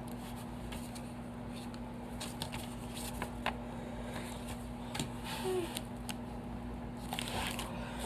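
Small plastic model horses and their packaging being handled: scattered light clicks and crinkles, a few at a time, over a steady low hum.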